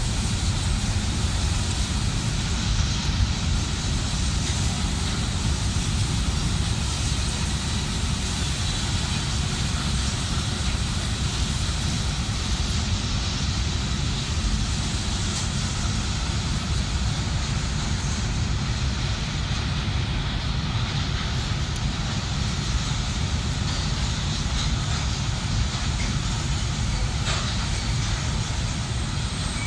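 Train running steadily on the track, a continuous rumble of wheels and cars with no let-up.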